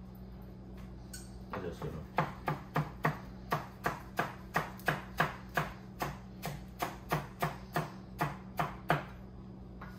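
Knife chopping fresh herbs on a wooden butcher-block board: an even run of knocks, three to four a second, starting about a second and a half in and stopping near the end.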